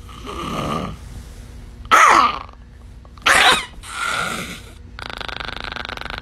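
Chihuahua growling over its toy bone, broken by two sharp yelping barks that fall steeply in pitch, about two and three seconds in, then a steady growl from about five seconds in.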